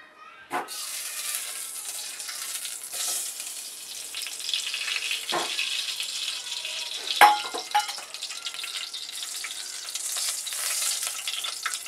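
Vanaspati shortening sizzling as it melts in a hot aluminium pot, stirred and scraped with a wooden spatula. A knock starts the sizzle about half a second in, and a few more utensil knocks against the pot follow, the loudest a little past the middle.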